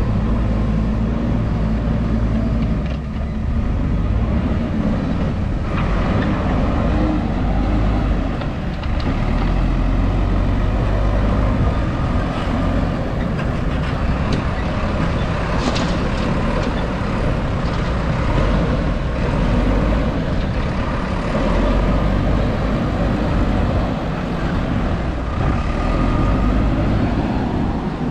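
JCB 3DX backhoe loader's diesel engine running steadily while it works, a low rumble with a brief sharp knock about halfway through.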